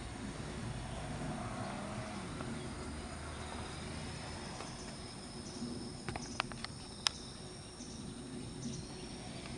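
Insects chirping in a steady high trill, over a low rumble that fades about halfway through. A few sharp clicks come about six to seven seconds in.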